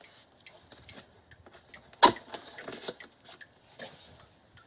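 Hand tools clinking during engine work: scattered light clicks, with one sharp clank about two seconds in followed by a quick run of smaller clicks.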